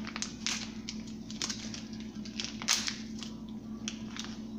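Thin clear plastic sleeve crinkling in the hands as a toasted oak stick is worked out of it, in scattered small crackles and clicks.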